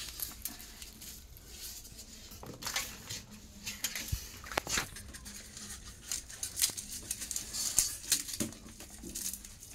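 Garlic cloves being peeled by hand: the dry papery skins crackle and tear in short, irregular bursts, with occasional sharp clicks from the cloves and the steel bowl.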